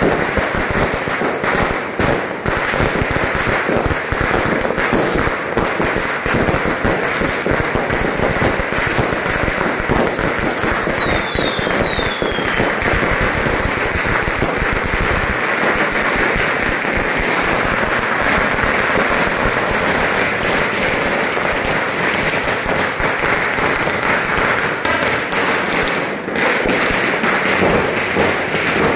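Fireworks and firecrackers going off in a dense, continuous crackling barrage, with a few short falling whistles about ten to twelve seconds in.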